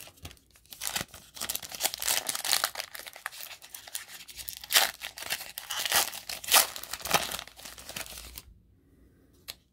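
Foil wrapper of a 2019 Diamond Kings trading-card hobby pack being torn open and crumpled by hand: a long run of crinkling with sharp crackles and rips. It stops about a second before the end.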